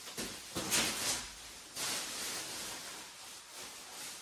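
Thin plastic drop cloth rustling and crinkling as it is pulled off and bunched up by hand, in uneven surges that are loudest about a second in and die down toward the end.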